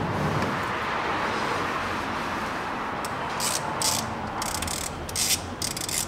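Ratchet wrench clicking in several short runs from about halfway through, as a bolt on a Chevrolet Lanos cylinder head is turned.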